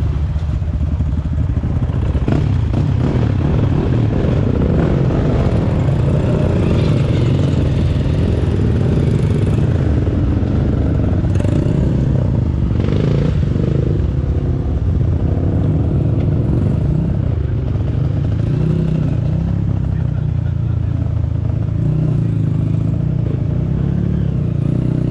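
Dirt bike engine running close to the microphone, its pitch rising and falling as the throttle opens and closes, with a few clattering knocks from the bike over rough trail.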